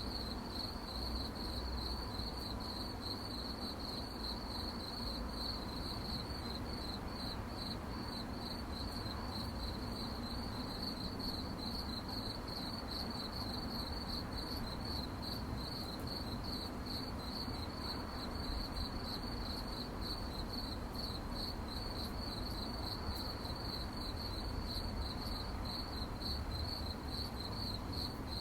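Crickets chirping at night: a steady chorus of rapid, even pulses on one high note, over a faint low background rumble.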